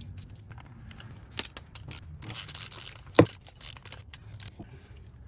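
Ratchet and socket clicking and clinking on a brake caliper bracket bolt as it is fitted and run in, with one sharp, loud metallic click about three seconds in.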